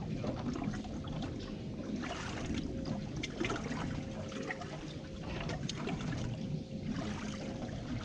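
Water splashing and lapping against a fishing boat's hull, with scattered crackles, over a low steady rumble and a faint steady hum.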